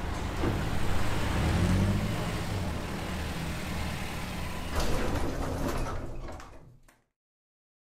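Otis elevator doors sliding open and later closing, over a low rumble. The sound fades out to silence about seven seconds in.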